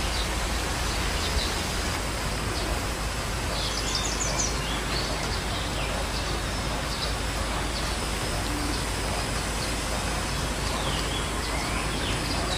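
Steady outdoor background hiss with birds calling now and then, including a quick trill of rapid high notes about four seconds in.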